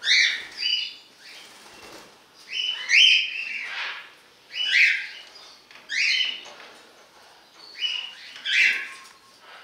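Parrots calling: short, rasping squawks repeated every second or so, some in quick pairs.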